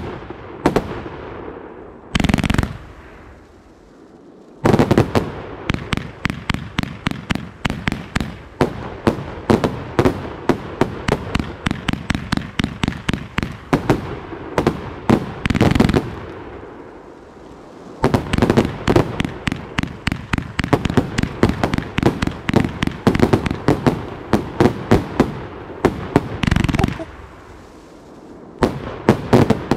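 Funke Shock Wave F3 fireworks cake firing its 38 mm shots: rapid volleys of sharp launch thumps and aerial bursts, several a second, broken by brief lulls about four, seventeen and twenty-eight seconds in.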